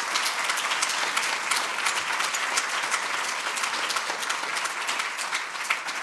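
Audience applauding steadily: many hands clapping together in a dense patter.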